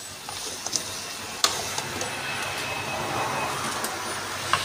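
Metal spoon stirring pork ribs in thick curry sauce in an aluminium pot, with a few sharp clinks of the spoon against the pot, the loudest about a second and a half in, over a steady hiss.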